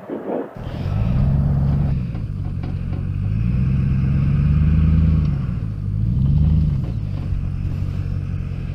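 Snowmobile engine running at low speed, its pitch rising and falling a few times as the throttle is worked.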